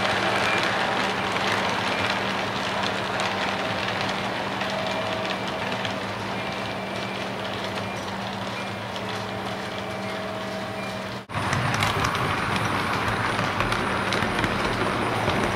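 O-gauge model train running on its track: a steady rolling rumble and clatter of wheels over the rails, with a constant electric hum. About eleven seconds in the sound drops out for an instant and comes back a little louder and rougher.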